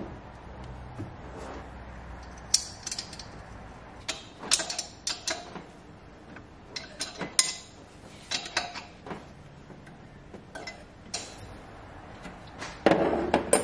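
Metal EGT sensor being threaded by hand into the bung on a turbo dump pipe: irregular small metallic clicks and scrapes of the fitting and tool-free handling among engine-bay parts.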